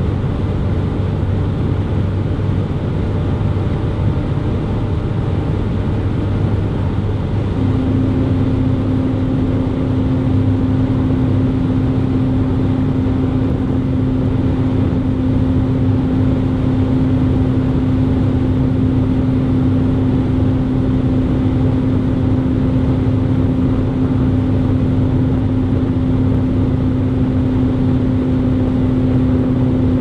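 Interior sound of a Mercedes-Benz E 300 estate (S213) with its turbocharged four-cylinder, cruising at about 185–190 km/h: steady engine drone under tyre and wind noise. A steady humming tone joins about a quarter of the way in and holds.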